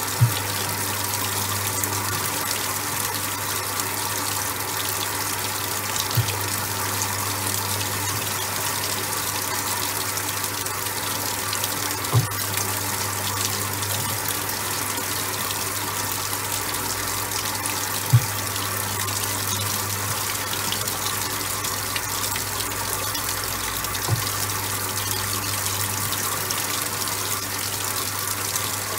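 Top-loading washing machine running with a load of towels: steady rushing, churning water over a low motor hum, with a short click about every six seconds.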